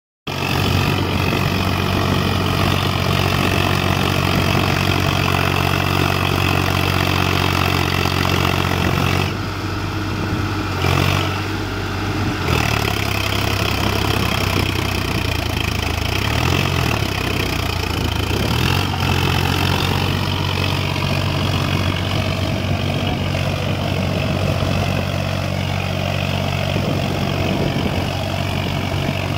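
Solis tractor's diesel engine running steadily under load as it drags cage wheels and a leveller through paddy-field mud. The engine note shifts about a third of the way in and wavers up and down for a few seconds about halfway through.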